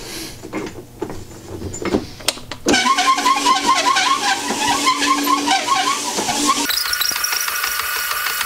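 Cylinder honing machine starting up about three seconds in and running with its coarse stone in the bore of a Yamaha 701 cylinder: a steady hum with a warbling chatter, which changes to a steadier, higher sound about seven seconds in. A few clicks and knocks come first as the hone is set in the bore.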